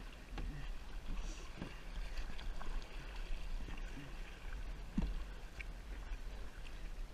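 Kayak paddling: paddle strokes and water splashing and lapping at a plastic sit-on-top kayak, with scattered knocks, the loudest about five seconds in, over a steady low rumble.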